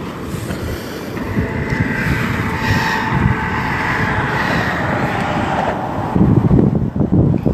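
Road traffic on a causeway: cars going by with a steady rush of tyre and engine noise, a whine building and fading through the middle, and a heavier low rumble near the end.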